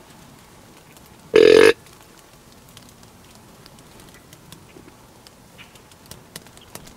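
One short blast on a deer grunt call, a low burp-like grunt lasting under half a second, about a second and a half in.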